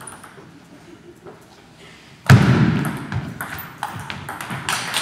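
Table tennis rally: the celluloid ball clicking sharply off bats and table in quick succession from a little over two seconds in, starting with a loud low thump.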